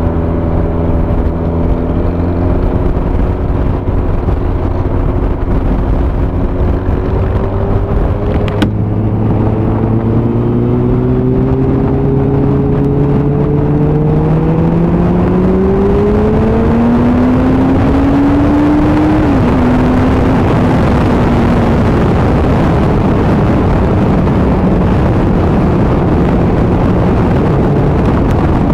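Motorcycle engine pulling away: a steady engine note at low speed, then rising for about ten seconds as the bike accelerates, dropping briefly at a gear change. After that, wind rush over the microphone at road speed covers most of the engine.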